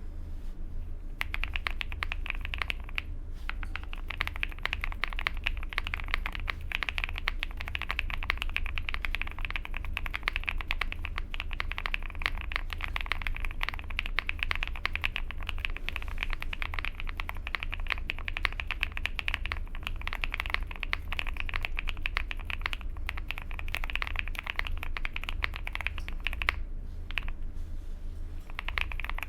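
Fast, continuous typing on a QK65 custom mechanical keyboard with lubed Jerrzi Rouge switches on a POM plate, fully foamed, with PBT double-shot cherry-profile keycaps. The typing starts about a second in, stops for a moment near the end and then picks up again.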